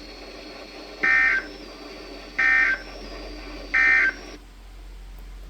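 EAS end-of-message code from a weather radio receiver: three short bursts of warbling digital data tones, about 1.35 s apart, over steady radio hiss. They signal the end of the broadcast severe thunderstorm warning.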